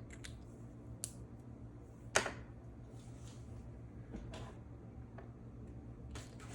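Drawing supplies being sorted and handled: a few light clicks and knocks, the sharpest about two seconds in, with short soft scratchy rustles between them.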